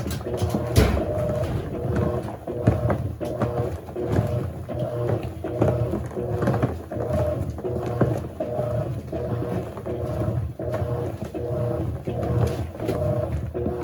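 Electrolux LAC16 top-loading washing machine agitating a small load of kitchen towels during the wash stage. The motor whines in repeated strokes as the agitator swings back and forth, with a sharp knock about a second in.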